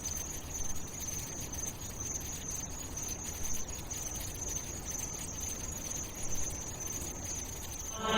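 A steady, high-pitched, insect-like chirring, like a cricket chorus, held over a low hum: an ambient intro between songs.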